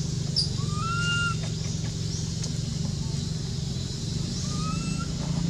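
A steady low mechanical hum, like an engine running. Twice, a short whistle-like call rises and then holds level, once about a second in and once near the end.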